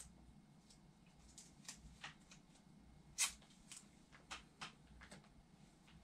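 Hands handling tape and small supplies: scattered soft rustles and light clicks, with one sharper click about three seconds in.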